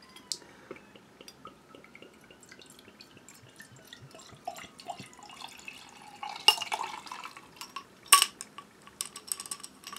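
Beer pouring from a swing-top glass bottle into a tilted tall glass, the liquid running and splashing. In the second half come several sharp glass clinks, the loudest about six and a half and eight seconds in.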